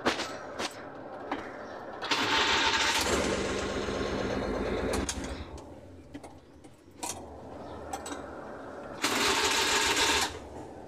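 Suzuki F6A three-cylinder engine being cranked by its starter, in two goes: a run of about three seconds starting some two seconds in, then a shorter one near the end. This is a test of whether the engine cranks reliably once the loose battery negative terminal has been tightened.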